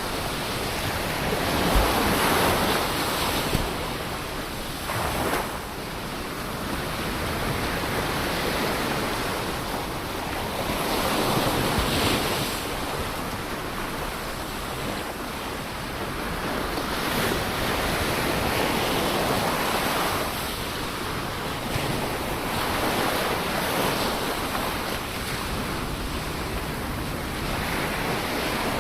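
Ocean waves breaking and washing up a shore, a continuous surf that swells and eases every few seconds.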